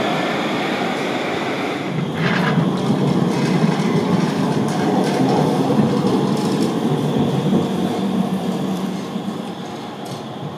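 Light-rail trams running on their tracks: a steady rumble of wheels on rail, with a change in sound about two seconds in, growing louder and then fading away near the end.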